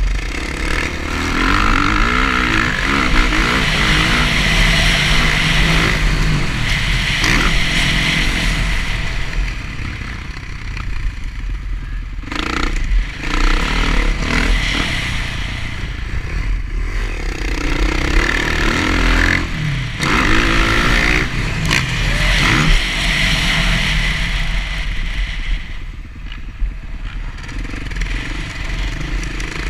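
Dirt bike engine revving up and easing off again and again as it is ridden over a rough dirt track, with a few knocks from the bike over bumps. Wind rushes over the microphone throughout.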